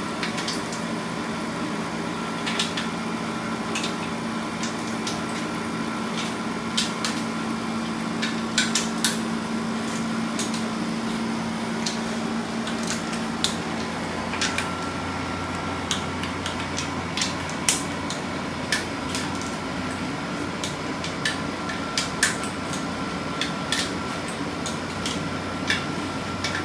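A torque wrench tightening the case nuts and small hardware on a Volkswagen Type 1 air-cooled engine case, making irregular sharp metallic clicks and clinks every second or two. A steady hum runs underneath.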